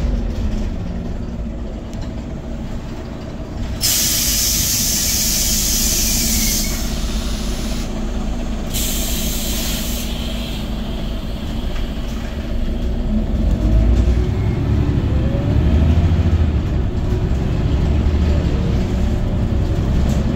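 Interior of a Scania OmniCity city bus: the engine drones low, and two loud blasts of compressed air hiss out, one about four seconds in and a shorter one around nine seconds. From about two-thirds of the way through the engine note rises and gets louder as the bus accelerates.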